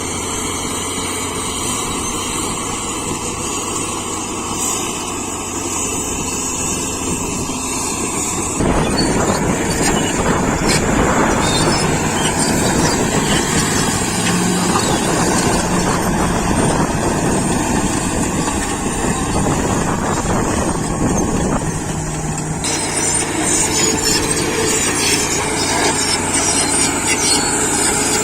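Caterpillar D7G bulldozer's six-cylinder diesel engine running steadily. About a third of the way in it turns suddenly louder and rougher, and the sound shifts again near the end.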